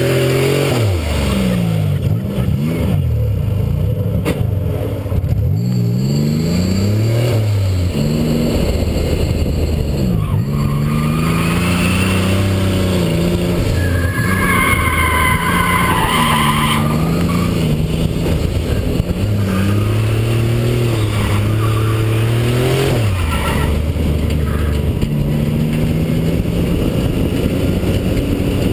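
Nissan 300ZX (Z31) being drifted: the engine revs climb and drop again and again as the driver works the throttle, with the tires squealing through the slides, loudest about halfway through.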